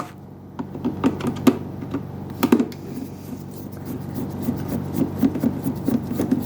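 A Phillips screwdriver backing a screw out of the plastic base of a Keurig coffee maker: a run of small, irregular clicks and ticks as the tip turns and regrips.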